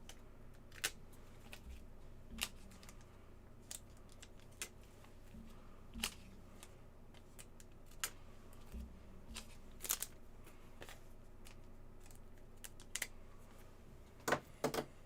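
Stiff plastic penny sleeves for trading cards being flexed and worked open at the edges: scattered light clicks and crinkles, with a couple of sharper clicks near the end.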